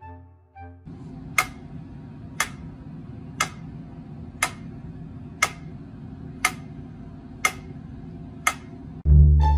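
Sharp ticks exactly one a second, eight in all, over a low steady hum, like a clock or metronome keeping time. Loud background music cuts back in near the end.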